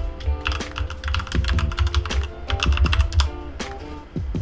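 Typing on a computer keyboard: quick runs of key clicks with short pauses between them, over lofi hip-hop background music with a steady bass.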